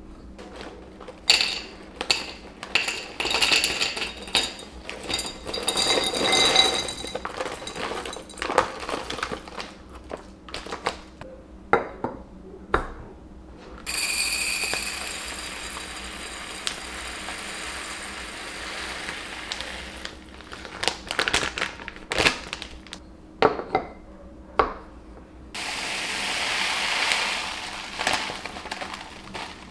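Glass storage jars clinking and knocking on a countertop as they are handled and their lids taken off. Then dry seeds poured from a bag into a glass jar in a steady rush for about six seconds. After a few more knocks, red lentils are poured into another glass jar in a second rush near the end.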